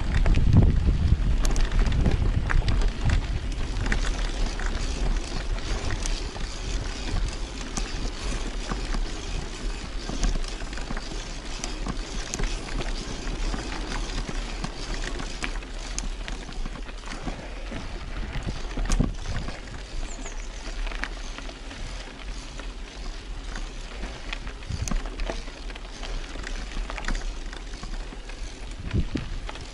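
Riding a bicycle over rough ground: a steady rushing noise with scattered knocks and rattles, loudest in the first few seconds.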